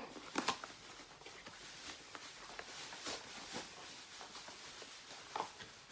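Packaging and products being handled: a few short clicks and rustles against a quiet room.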